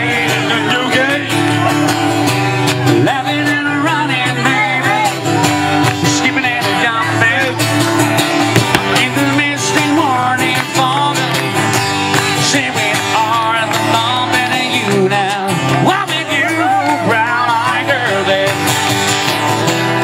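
A pop-rock song playing, with a singing voice over guitar.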